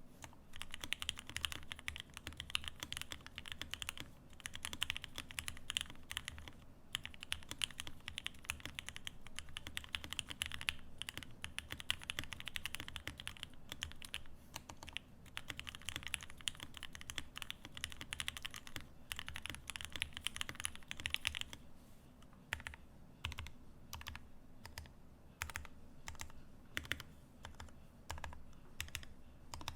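Typing on a Paraluman custom mechanical keyboard: lubed Gateron Ink v2 linear switches with long springs and switch films, on an aluminium plate in an O-ring mount, under CRP keycaps. The keystrokes come fast and dense, then about two-thirds of the way through they thin out to slower, separate strokes.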